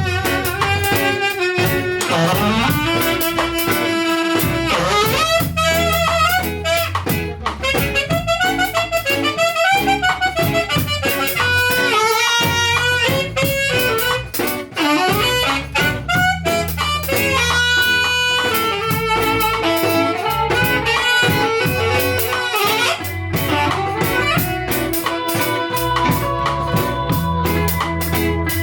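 Live band playing an instrumental passage in a slow reggae groove: a lead melody line sliding between notes over bass and drums.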